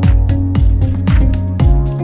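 Upbeat electronic background music with a steady dance beat: a kick drum about twice a second under sustained chords and hi-hats.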